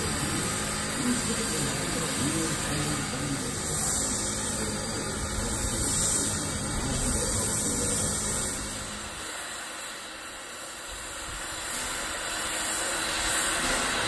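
Steady hiss of escaping steam from a steam engine, with faint voices underneath in the first few seconds.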